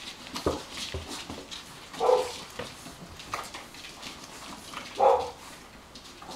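Two short dog barks, about three seconds apart, with faint scuffling in between.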